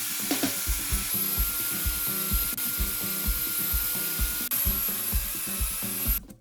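A power tool running steadily with a high whine, cutting off suddenly near the end. Background music with a steady beat plays underneath.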